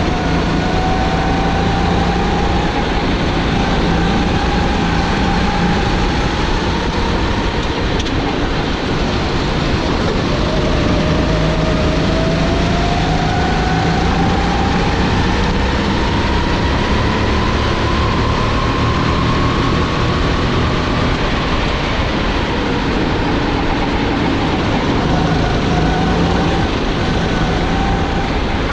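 Onboard sound of a Sodi GT5R rental kart's 270 cc, 9 hp single-cylinder four-stroke engine running hard at racing speed. Its pitch climbs slowly along the straights and drops for the corners, most plainly in a long climb through the middle and a fall after it.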